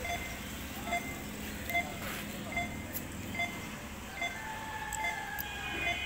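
Push-button pedestrian crossing signal beeping steadily, one short beep about every 0.8 seconds, over street traffic noise. A longer held tone comes in near the end.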